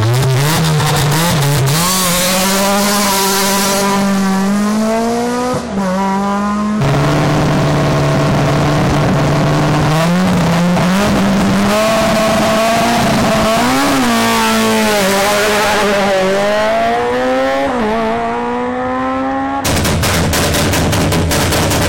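Rally car engines held at high revs on a stage start line, the revs climbing, holding and dipping again as the drivers blip the throttle. Near the end, a rapid, even string of sharp bangs from the exhaust.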